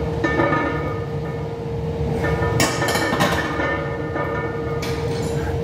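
Plates on a loaded barbell clinking a few times, about two and a half to three seconds in and again near the end, during incline bench press reps, over a steady low rumble with a constant hum.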